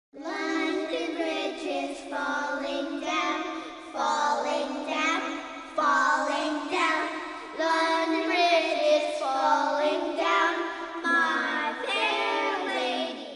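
Intro music carried by a high singing voice with a wavering pitch, in phrases about two seconds long. It stops abruptly at the end.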